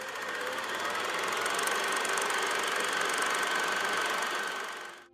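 Film projector running: a rapid mechanical clatter with a steady whir, which fades away near the end.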